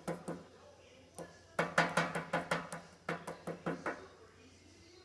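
A metal spoon tapping repeatedly, knocking off dripping chocolate icing: a few single taps, then a quick run of taps about five a second.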